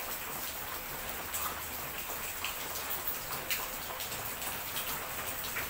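Kittens eating from plates: many small, irregular wet clicks and smacks of chewing and licking, over a steady hiss.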